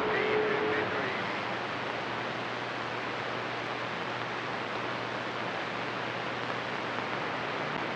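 CB radio receiver hiss: steady band static with the squelch open between skip transmissions on channel 28, with a faint tone in the first second.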